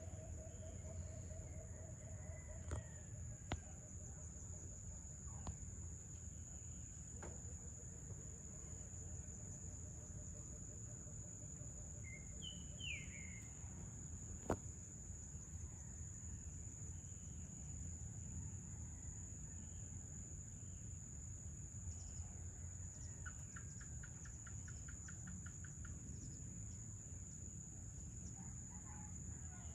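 Evening outdoor ambience: a steady high trill of insects with a low rumble underneath. A rooster's crow trails off in the first few seconds, and a bird gives a short falling chirp about halfway through. A few sharp clicks stand out, the loudest about fourteen seconds in.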